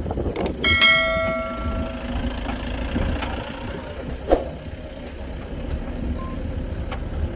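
Low steady rumble of an idling safari jeep's engine. Over it come a pair of mouse-click sound effects and a bell chime ringing for about a second and dying away, from the subscribe-button animation. Another single click comes about four seconds in.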